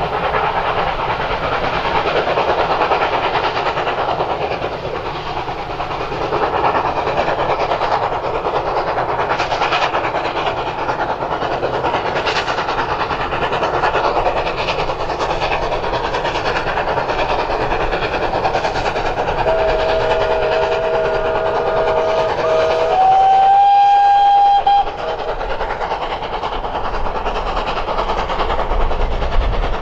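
Two steam locomotives hauling a passenger train past, running steadily with the clatter of the train. About twenty seconds in, a steam whistle sounds for about three seconds, followed at once by a second, higher whistle for about two seconds, the loudest part.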